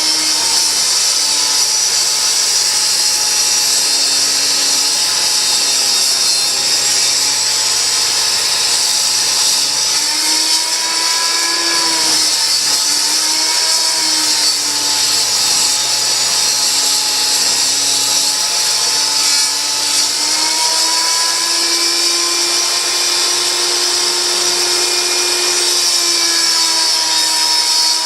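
Table saw running and ripping a board, a steady whine with hiss. Its pitch dips and recovers several times, the way a saw motor slows as the blade takes the wood.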